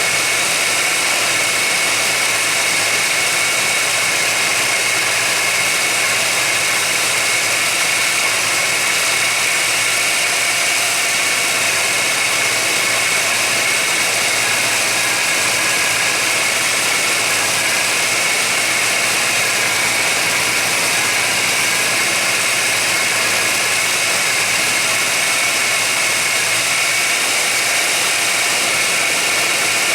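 1991 GMC Jimmy's engine idling steadily, with an even hiss above it, while a vacuum leak is being searched for.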